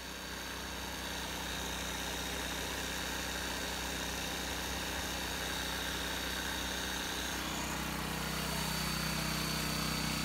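Motor-driven power equipment running steadily at the job site: a constant high whine over a low drone, the drone getting stronger about eight seconds in.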